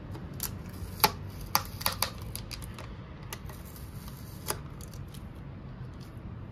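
Sharp plastic clicks and crackles from a Starbucks clear plastic cold-cup lid as a hand handles it and pulls the green stopper out of its sip hole: about half a dozen clicks, most in the first two seconds and one more about four and a half seconds in.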